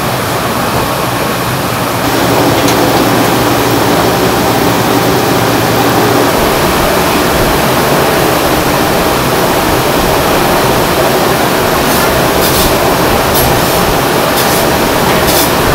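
Steady loud rush of commercial kitchen ventilation fans with a low hum under it, stepping up a little about two seconds in. A few faint clicks come near the end.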